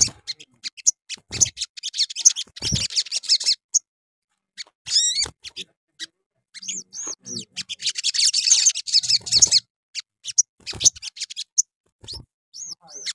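Small caged songbird (sogon) singing in bursts of rapid, high twittering chirps and trills. There are a few soft thumps and wing flutters as it hops and flies about the cage.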